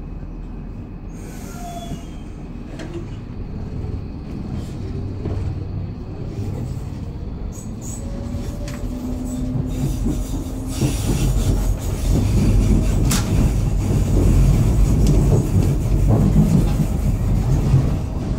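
Docklands Light Railway train pulling out of a station, heard from inside the carriage: a low rumble that grows louder as it gathers speed, with a whine gliding in pitch near the middle and a few sharp clacks of the wheels over the rails in the second half.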